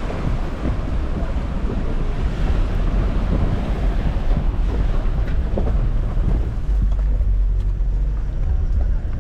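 Wind buffeting the microphone: a loud, steady low rumble with a rush of air above it.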